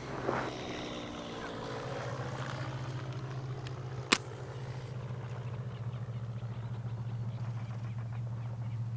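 A steady low engine drone with a fast flutter, swelling slightly about two seconds in, and one sharp click about four seconds in.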